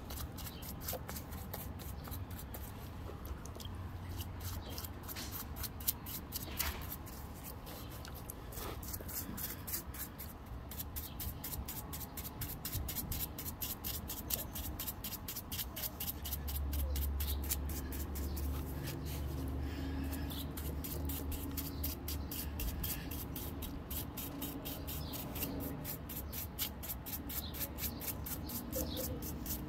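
A paintbrush scrubbing a wet fossil-bearing rock in a tub of water, a quick run of short scratchy bristle strokes. A low steady hum sits underneath and grows louder about halfway through.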